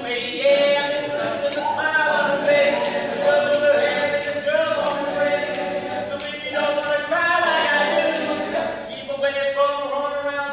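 All-male a cappella group singing in harmony, several voices with no instruments, holding long sustained notes.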